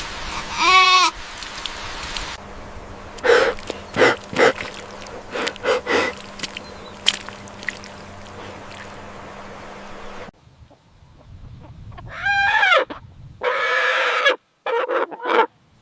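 Farm animals bleating: a short wavering bleat just under a second in, then three more in quick succession near the end. Scattered shorter calls and clicks lie over a steady low hum in between.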